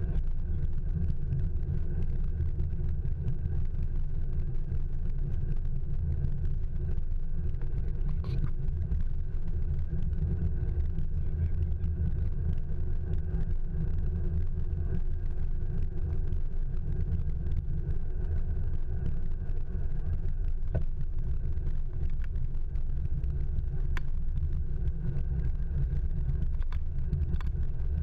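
Steady low rumble of wind and road vibration on a handlebar-mounted action camera while riding a bicycle, with a couple of faint clicks.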